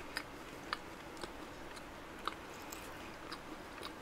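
Close-miked chewing of a macaron: faint, soft mouth clicks at irregular intervals over a quiet room.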